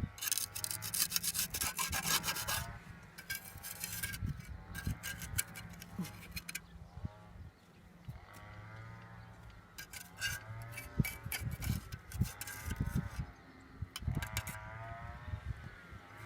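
Runs of rough scraping or rasping strokes, loudest in the first few seconds and again past the middle, while sheep bleat again and again.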